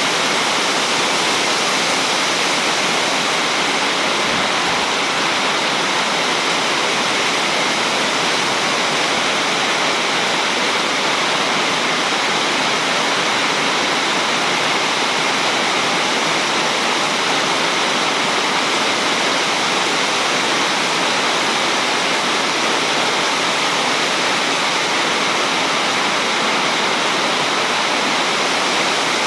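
Heavy rain falling steadily, a loud even downpour with no thunder.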